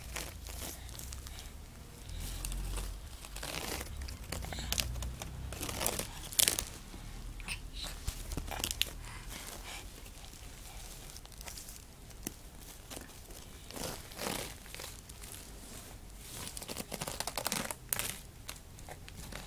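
Irregular rustling and crinkling close to the microphone, with scattered scratchy scrapes and a low rumble underneath.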